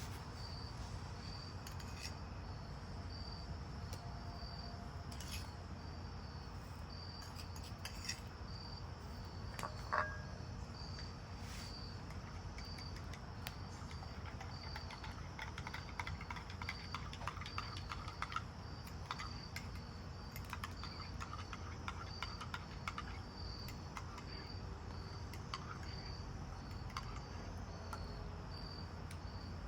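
A cricket chirping in steady, evenly spaced chirps over a low, steady background rumble, with scattered light clicks and a brief louder clink about ten seconds in.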